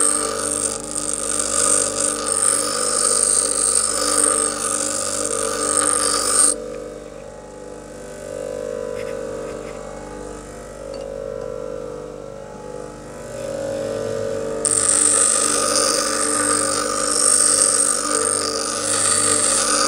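Bench grinder running, with a steel file pressed to the wheel to grind its teeth off. About six seconds in the file comes off the wheel and only the motor is heard for some eight seconds, then grinding starts again.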